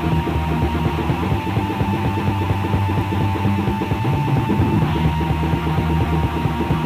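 Raw black metal played by a full band: distorted guitars and bass over dense, rapid drumming, with no break. It is a rehearsal-tape demo recording, muffled and short of treble.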